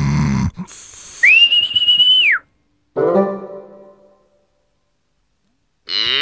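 Cartoon snoring: a low rumbling snore, then a long high whistle on the out-breath that drops in pitch as it ends, then a short fading tone. Just before the end a loud cry starts.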